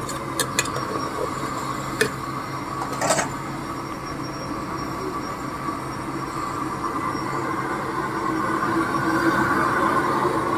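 Steady rushing of the gas burner under a row of enamel chai kettles, with a steady low hum. A few sharp metal clinks in the first three seconds, from a ladle knocking against a kettle.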